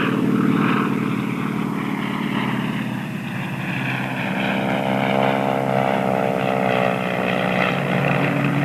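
Crop-dusting propeller airplane's piston engine droning steadily on a low pass, its pitch sliding slightly down in the second half.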